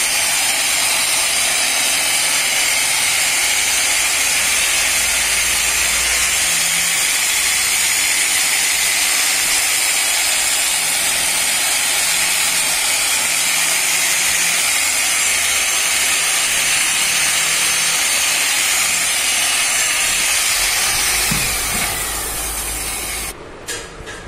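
Electric angle grinder fitted with a polishing pad, running steadily while buffing a motorcycle headlight lens with polishing cream. Near the end the motor is switched off and winds down, its whine falling in pitch until it stops.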